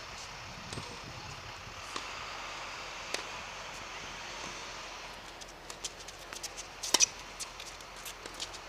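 Footsteps and shoe scuffs on an outdoor hard tennis court: a scatter of short sharp clicks that thickens after about five seconds, with one louder click about seven seconds in, over a steady hiss that fades about five seconds in.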